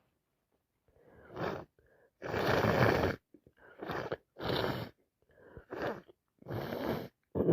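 A person congested with a cold and allergies in a fit of sneezing and nose-blowing: about seven breathy, wet bursts. The longest and loudest lasts about a second, just after two seconds in.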